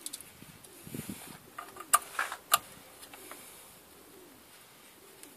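Sharp metal clinks of bolts and a hand tool against a car's clutch pressure plate during fitting, the two loudest about two and two and a half seconds in, with a softer knock near the one-second mark. A bird coos faintly in the background.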